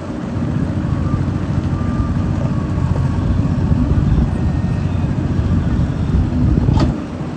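Heavy diesel machinery engine running steadily under load, with a single sharp knock near the end.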